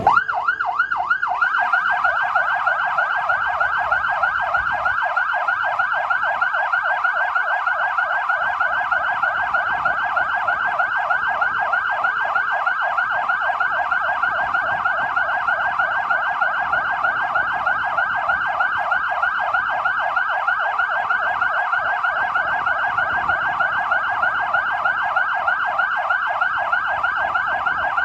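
Fire engines' sirens sounding together in a fast, repeating up-sweeping wail. They are sounded in commemoration, not on an emergency call.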